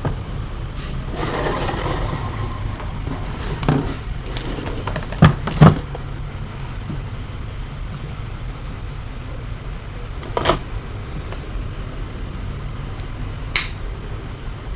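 Small hand tools working on the fan motor's coil wires while the blown thermal fuse is cut out: scattered sharp clicks and snips, the loudest two close together about five and a half seconds in, over a steady low hum.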